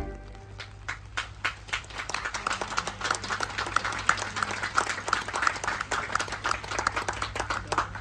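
Audience applauding after the end of a song: many irregular hand claps, starting thin about half a second in and filling out into steady applause.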